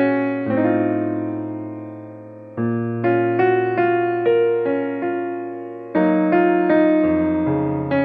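Background music: a piano playing gentle notes and chords that are struck and left to fade, with new chords entering about half a second in, near the middle, and about six seconds in.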